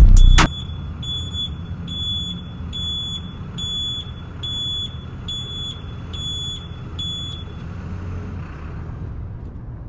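A vehicle's electronic warning chime beeping over and over, about ten high beeps roughly one and a half per second, then stopping, over a low steady rumble.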